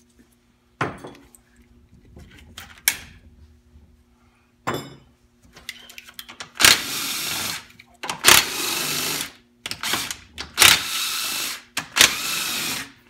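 A power driver backing out bolts from a 4L80E transmission, in four short runs of about a second each, with scattered clicks and knocks of tools and parts before them.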